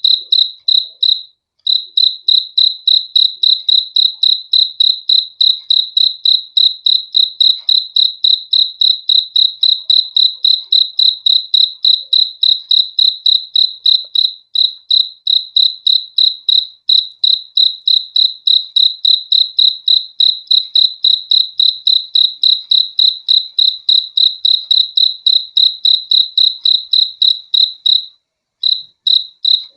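Cricket chirping in a steady, even rhythm, about four high-pitched chirps a second, with short pauses about a second and a half in and near the end.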